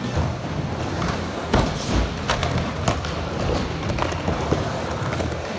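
Skateboard rolling on a skatepark surface with a steady low rumble, broken by several sharp clacks of the board and one heavy thud about one and a half to two seconds in.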